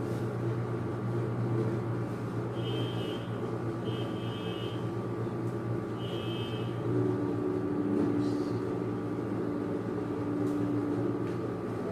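A steady low hum with three short, high beeps about three, four and six seconds in.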